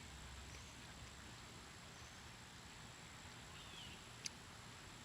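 Quiet outdoor ambience: a faint steady hiss with a thin high steady tone, a faint bird chirp about three and a half seconds in, and one short sharp click just after.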